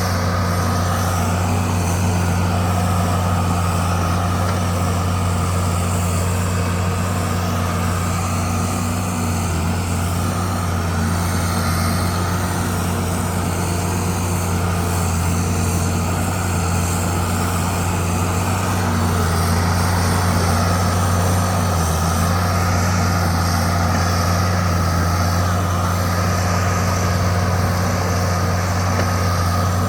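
Bulldozer's diesel engine running steadily, its note dropping slightly a couple of times.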